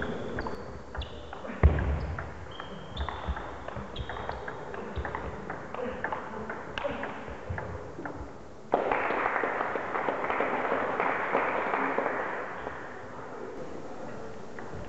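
Table tennis play: the celluloid-type ball clicking off bats and table, with short shoe squeaks on the wooden hall floor and one heavy thump about two seconds in. About nine seconds in, a burst of applause starts suddenly and lasts about four seconds before fading.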